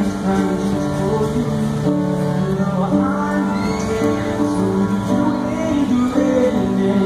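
Grand piano playing a slow passage of sustained chords in a live original song, amplified through stage speakers.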